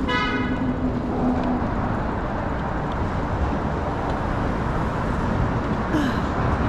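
Steady road traffic noise, with a short car horn toot right at the start.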